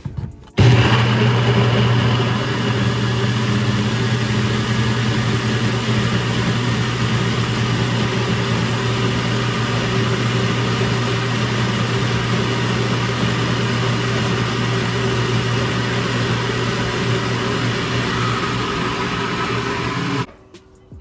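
NutriBullet blender motor running, blending fruit and juice into a smoothie. It starts suddenly about half a second in, is loudest at first, then runs steadily with a low hum and cuts off suddenly near the end.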